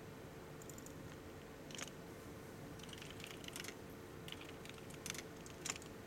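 Keystrokes on a computer keyboard as a command is typed: short irregular runs of light clicks, the sharpest near the end.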